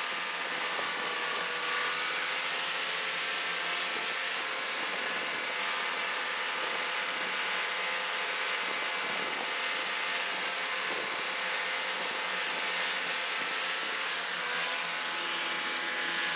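Snowmobile engine running steadily at cruising speed, a constant drone with a steady whine over a rushing hiss.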